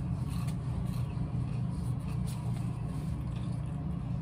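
A person chewing crunchy Flamin' Hot Cheetos with the mouth close to the microphone, a few faint crackly crunches, over a steady low hum.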